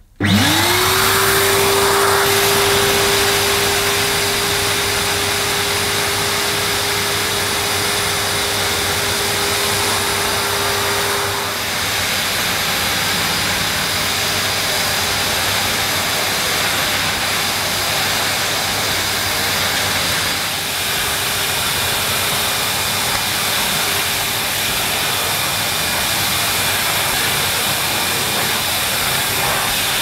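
Numatic Henry HWD370 wet and dry vacuum cleaner switched on, its 1060 W motor spinning up with a rising whine in the first second, then running steadily over a rushing of air as it sucks soapy water off a tiled floor. The whine fades about eleven seconds in while the rushing carries on.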